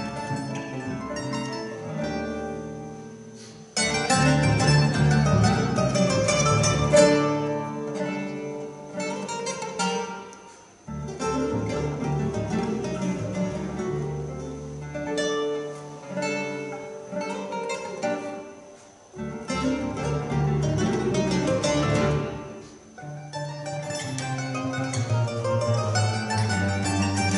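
Live acoustic trio of mandolin, acoustic guitar and double bass playing together. The music drops away and comes back in strongly several times.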